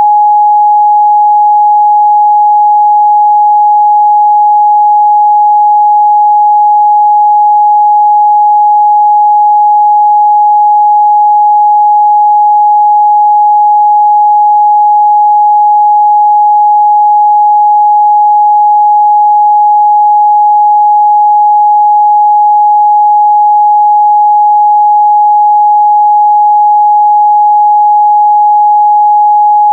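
Continuous 836 Hz sine-wave test tone, a single steady pure pitch held at constant loudness.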